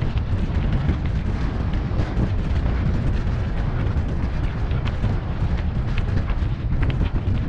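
Wind buffeting the microphone while riding a trail: a steady deep rumble, with scattered small clicks and rattles from the ride.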